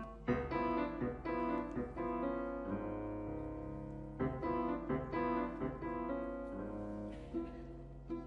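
Instrumental music led by piano: notes and chords struck in quick succession, with one chord held for a second or so partway through.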